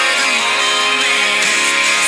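Background music: a song playing with no words transcribed.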